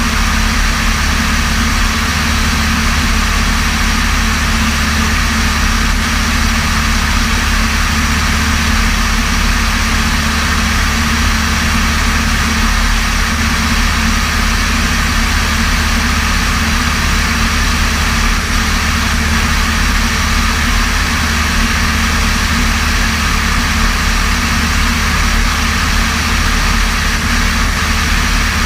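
Light aircraft's piston engine and propeller droning steadily in cruise flight, with a constant rush of airflow.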